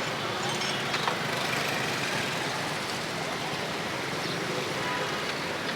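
Steady roadside traffic noise, with a few faint clicks and short tones on top.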